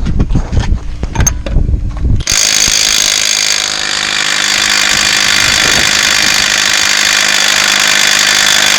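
Milwaukee M18 mid-torque cordless impact wrench hammering: about two seconds of irregular heavy knocks, then a loud, continuous rattling hammer.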